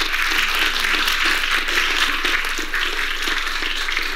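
Audience applauding steadily to welcome a speaker.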